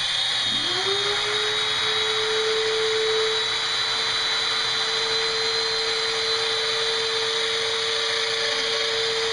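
Festool Domino joiner running with a dust-extractor hose attached while cutting loose-tenon slots: a steady high whine over a rushing noise. A lower hum climbs in pitch over the first second and a half, then holds steady as the extraction comes up to speed.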